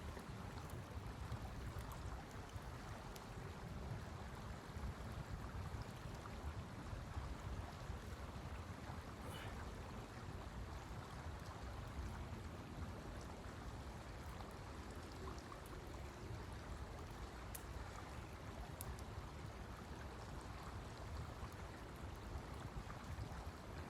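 Steady wind rushing, a low, even rumble, with a few faint clicks.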